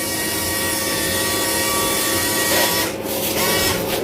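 Electric motor and gearing of a radio-controlled construction model running under load, a steady whine that dips briefly about three seconds in and then picks back up.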